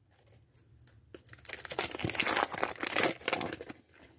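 Sticker packet wrapper crinkling as it is handled and opened: a dense run of crinkles starting about a second in and dying down just before the end.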